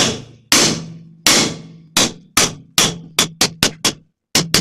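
A claw hammer strikes the steel bracket and post of a homemade bandsaw frame, about a dozen blows coming faster toward the end. Each blow rings with a low metallic tone. The hammering aims to drive out a part whose welds have been cut, and the part is still holding.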